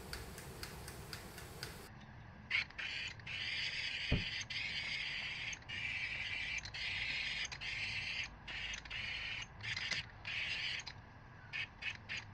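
Powder-coating spray gun hissing as its trigger is pulled and released, giving many on-and-off bursts of air and powder, with a single knock about four seconds in.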